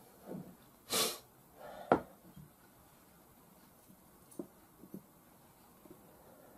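A sniff about a second in, then a sharp click just before two seconds as the stripped air-rifle action is handled, followed by a few faint clicks as small parts are set down on the cloth-covered table.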